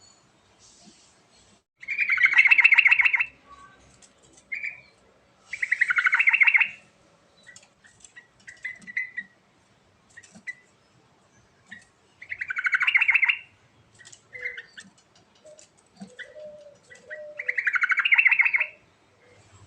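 Yellow-vented bulbul (trucuk) singing: four loud, fast bubbling phrases of a little over a second each, several seconds apart, with short softer chirps in between.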